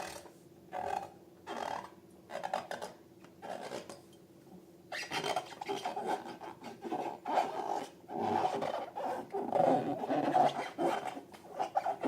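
Hands squishing and rubbing slime: a few short, separate rasping rubs, then denser, louder squishing from about five seconds in.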